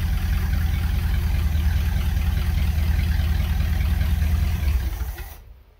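1977 Dodge B200 van's 318 V8 idling, running like a sewing machine, then dying away about five seconds in as it runs out of fuel.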